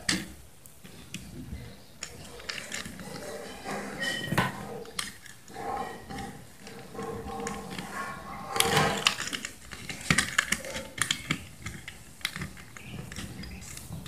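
Irregular small clicks, taps and rustles of hands twisting short pieces of copper wire together and fitting them to the brass screw terminals of plastic 3-pin sockets on an extension board, busiest about halfway through.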